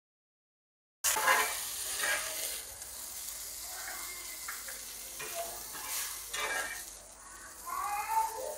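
Chicken pieces sizzling in oil in a black iron pan, with a metal spatula scraping against the pan several times as the pieces are lifted out. The sound cuts in suddenly about a second in.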